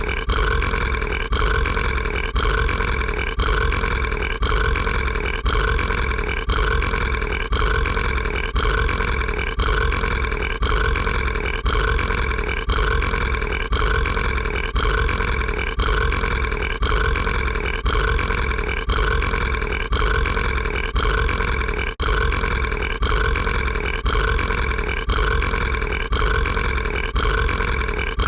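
A cartoon character's burp, one short clip looped back to back over and over, repeating a little more than once a second.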